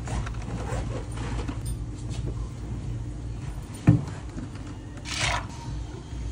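Long bar spoon stirring ice and juice in a plastic cup, with faint clinks, over a steady low hum; a single sharp knock near the middle, and a short hiss about five seconds in.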